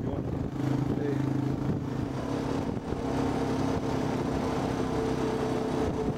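A vehicle's engine running steadily at low speed while driving, a low hum that shifts pitch slightly a few times.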